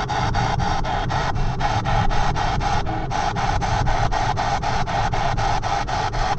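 P-SB7 spirit box radio sweeping across the radio band, giving a rapid, steady chatter of static bursts cut off about seven times a second, over the low rumble of the moving car.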